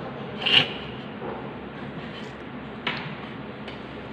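A few sharp light clicks, the loudest about half a second in and another near three seconds, over a steady low background hiss.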